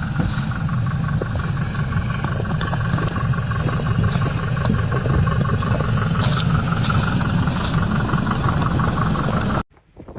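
A vehicle engine running steadily and loudly, with a deep rumble and a fast, even pulsing; it cuts off abruptly near the end.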